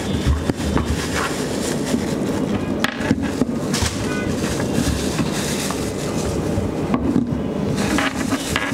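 Thin clear plastic bag crinkling and rustling, with cardboard scraping, as a pair of small plastic mini speakers and their cables are pulled from their box and unwrapped. The crinkling comes in bouts, loudest around three to four seconds in and again near the end.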